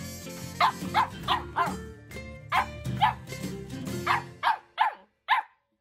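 Border collie puppy barking at its toy in about a dozen short yaps, coming in quick clusters of two or three, over background music that fades out near the end.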